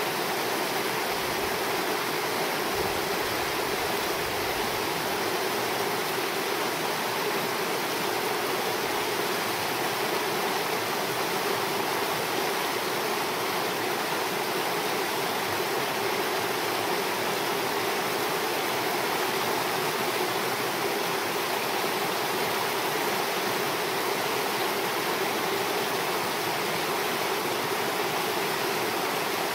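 A small creek rushing steadily over rocks and shallow riffles.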